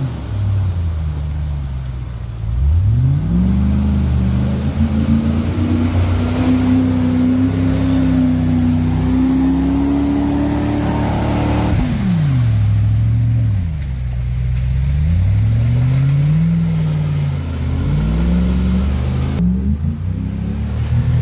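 Land Rover Discovery engine revving under load while pulling through a deep mud hole. The pitch climbs and is held high for several seconds, drops sharply, then rises and falls several more times.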